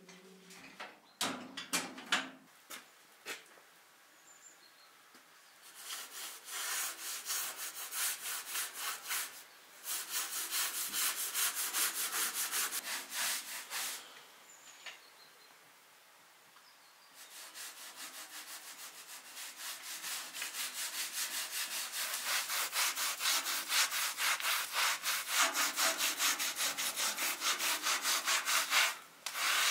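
Rhythmic scraping strokes of hand kitchen work, several a second, in two long runs with a pause in the middle, after a few short knocks near the start.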